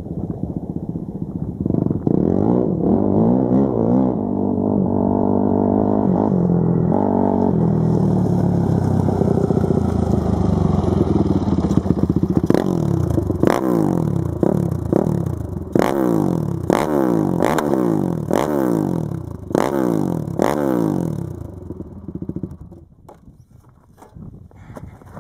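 Quad (ATV) engine revving hard: first held and swung up and down, then blipped over and over, about once a second, each rev climbing then dropping sharply. It dies down to a low level near the end.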